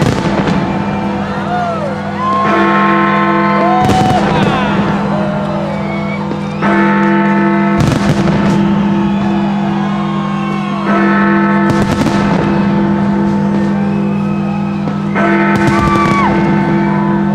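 Music with sustained chords that change about every four seconds, cut through by a sharp bang about every four seconds.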